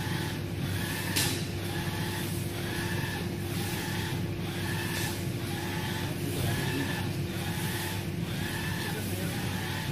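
UV flatbed printer running a print job: the print-head carriage shuttles back and forth along its rail, making a whir that repeats about once a second over a steady machine hum.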